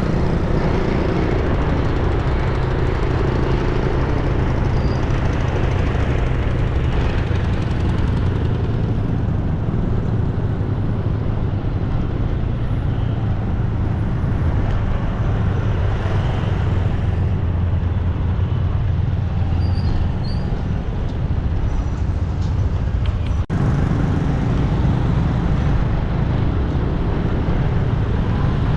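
Road traffic noise dominated by a steady low engine drone, with one momentary break about 23 seconds in.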